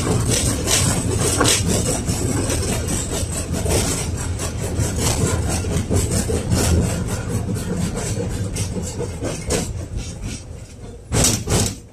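Cabin of a 1990 KTM-5 (71-605A) tram under way: low rumble with rapid rattling and clatter of the car on the rails, growing quieter over the last few seconds. Two sharp knocks come near the end.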